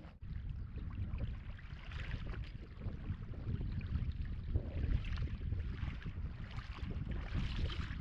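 Wind buffeting the microphone, a steady low rumble, over shallow water lapping and splashing around wading feet.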